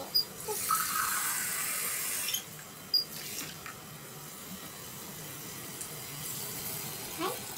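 Kitchen tap running for about two seconds as a measuring cup is filled with water, then, near the end, the cup of water being poured into a pot of simmering meat and vegetables.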